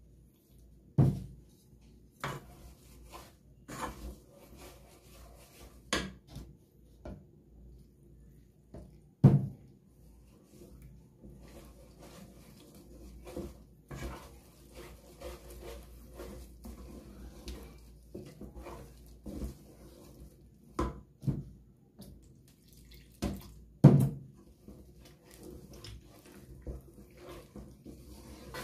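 Water poured from a plastic jug onto flour in a pot, and a wooden spoon mixing the flour-and-water paste, with irregular sharp knocks and scrapes of the spoon against the pot.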